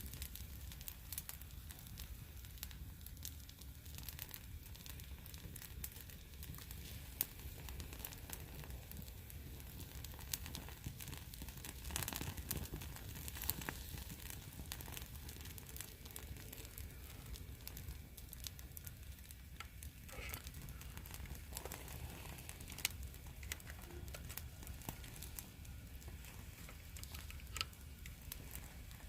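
Wood bonfire crackling, with scattered sharp pops throughout over a steady low rumble.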